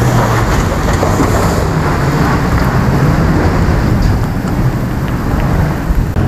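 Toyota Hilux ute engine under heavy load as it climbs a steep rock-and-dirt hill on momentum, with its tyres spinning and spraying dirt and stones. The wheelspin comes from the open, unlocked rear diff, which needs plenty of momentum to get the truck up.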